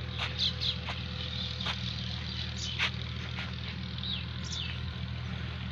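Solar-powered water pump motor running with a steady low hum and a faint steady whine. Birds chirp briefly several times over it.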